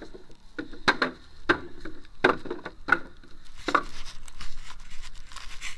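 Hammer blows striking wooden blocks: a series of sharp wooden knocks, about five strong ones, irregularly spaced less than a second apart, with fainter knocks between.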